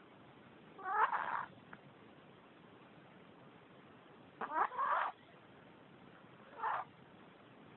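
A sleeping Chihuahua snoring: three high-pitched, wavering snores a few seconds apart.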